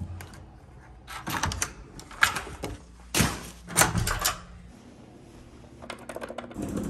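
Hotel room door with a key-card lock and lever handle: several separate clicks, clunks and knocks of the latch, handle and door, spaced about a second apart. Near the end comes a quick run of small clicks.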